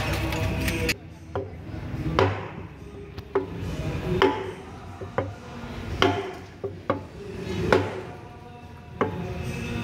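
Stripped Hyundai truck engine block knocking against the wooden blocks it rests on as it is rocked and shifted by hand: a series of irregular heavy thumps, roughly one a second.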